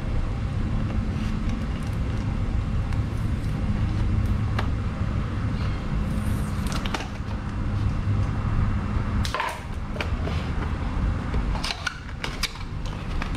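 Scissors snipping and a stiff plastic blister pack crackling as it is cut open, in scattered short clicks and crinkles, over a steady low rumble.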